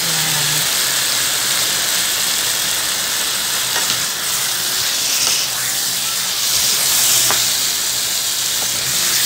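Pork pieces frying steadily in hot oil in a nonstick pan, with a constant sizzle as the meat is sautéed. A few light clicks and scrapes of a spatula against the pan come in the second half as the tomato paste is stirred in.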